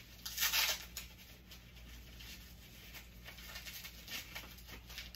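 Rustling and handling noise of items being packed into a duffle bag, with a louder rustle about half a second in, then quieter scattered rustles and light taps.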